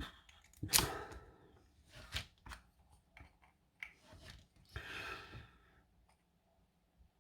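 Small metal tools and lock parts handled on a workbench: scattered light clicks and knocks, the loudest about a second in, and a brief hiss about five seconds in.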